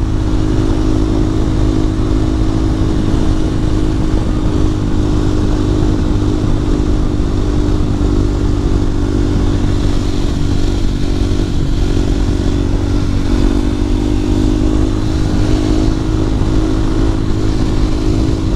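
Husqvarna 701's big single-cylinder four-stroke engine running at a steady high speed, heard from inside the rider's helmet with heavy wind noise.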